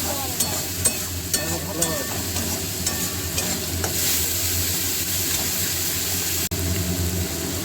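Prawns frying in hot oil in a pan, sizzling steadily, while a spatula stirs them, knocking against the pan a few times in the first two seconds.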